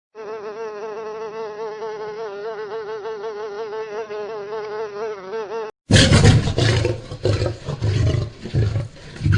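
A housefly buzzing steadily, its pitch wavering slightly, for about five and a half seconds. Then a lion roars loudly in a series of deep, repeated pulses.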